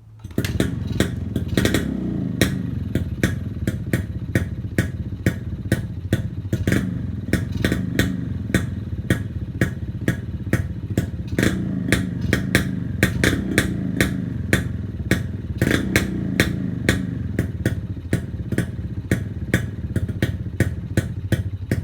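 Kawasaki HD3 motorcycle engine starting, then running through a loud open exhaust with a sharp, regular popping beat of about three a second. The throttle is blipped a few times, raising the note briefly.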